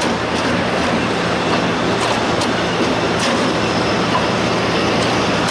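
A large diesel engine running steadily at a constant speed: a loud, even drone with a dense clattering rattle over it.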